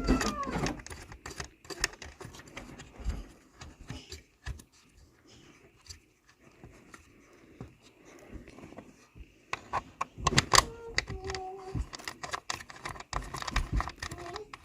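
Screws being fastened into the plastic base of a Lasko tower fan-heater: irregular clicks, taps and small rattles of the screws and plastic parts being handled and turned.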